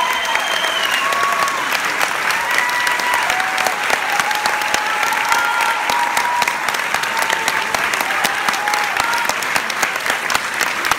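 Theatre audience applauding steadily in dense clapping, with scattered cheers rising above it.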